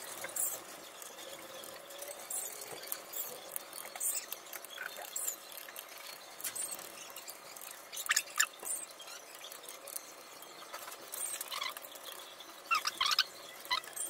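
Faint clicks, scrapes and taps of hands working on a laptop's plastic underside, with a run of high plastic squeaks near the end as the bottom cover is worked loose.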